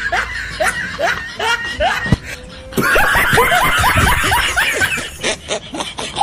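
Laughter: a run of quick 'ha' sounds, each falling in pitch, about three or four a second, with a short break around two seconds in before it picks up again.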